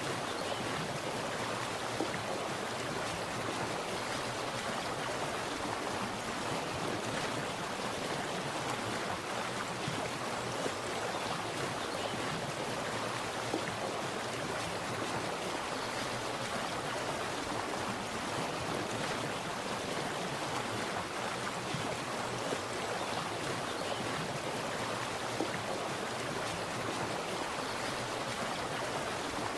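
Water splashing in a steady, continuous rush with no pauses or changes.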